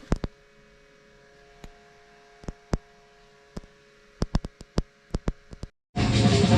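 Scattered sharp clicks and light knocks, irregular and growing more frequent towards the end, over a faint steady hum; loud electronic music cuts in near the end.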